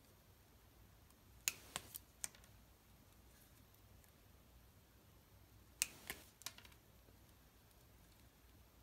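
Hand wire strippers clicking as they strip a few millimetres of insulation off thin red wire. A quick run of four sharp clicks comes about a second and a half in, and three more around six seconds, with near silence between.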